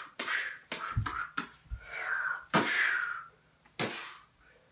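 A person making mouth sound effects for a toy fight: a string of short hissing and puffing bursts, one longer hiss near the middle, then falling quiet near the end.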